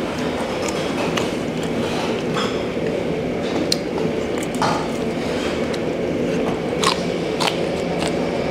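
A person eating close to the microphone: chewing, with a few short crunchy bites, one of them into a green chili pepper near the end, over a steady background hum.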